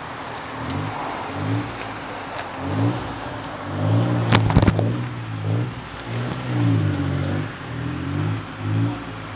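Tuk-tuk's engine running while under way, its pitch rising and falling again and again as it revs. A brief clatter of knocks about four seconds in.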